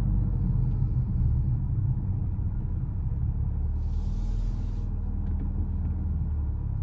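Mercedes-AMG A35's turbocharged 2.0-litre four-cylinder engine and exhaust running with a steady low rumble that eases slightly in level. A brief hiss lasting about a second comes about four seconds in.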